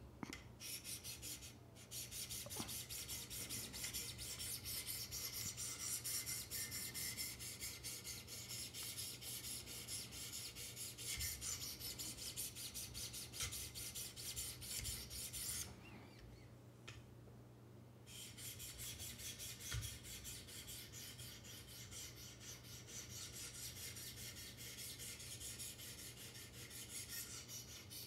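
Wicked Edge sharpener paddles faced with 800-grit lapping film stroked along a steel knife edge: a quick, rhythmic rasping scrape, with a pause of about two seconds a little past halfway.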